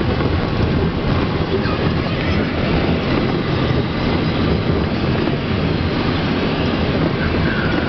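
Minibus on the move: steady engine and road noise, a loud, even rumble with no break.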